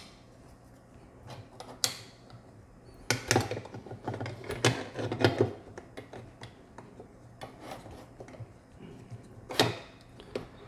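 Clicks, taps and light rattling of steel MGN12 linear rails and carriage blocks being handled and fitted under a 3D-printed mounting plate: a sharp click about two seconds in, a run of clicks and knocks in the middle, and another sharp click near the end.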